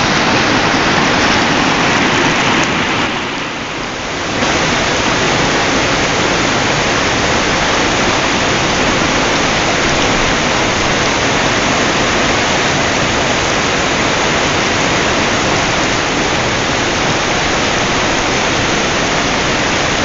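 River rapids: a loud, steady rush of white water pouring over rocks. It is briefly quieter around three to four seconds in, then comes back at full level.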